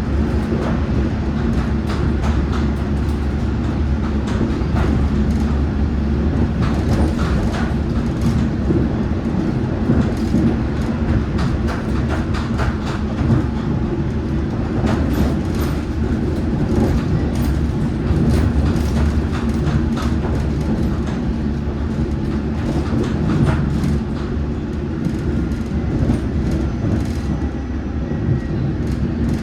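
Metropolitan line train running along the track: a steady low drone from the motors and running gear, with scattered clicks and knocks from the wheels over the rails.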